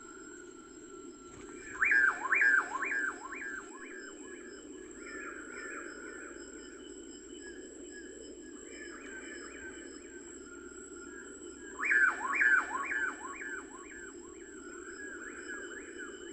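A bird sings two phrases, about ten seconds apart, each a quick run of loud notes that sweep downward, lasting about two seconds. Fainter chirping and a steady low hiss continue between them.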